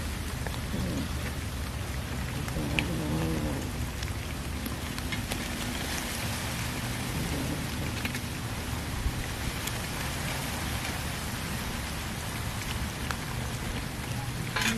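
Several cats chewing raw fish off a steel plate: small wet clicks and smacks scattered over a steady hiss.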